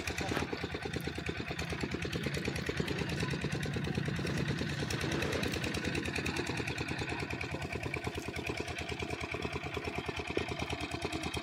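A small engine running steadily with a rapid, even pulse that holds the same speed throughout.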